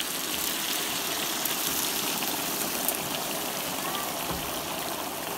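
Boiling water poured in a steady stream from a kettle into a cast-iron kazan of frying meat and vegetables, splashing and sizzling as it hits the hot fat.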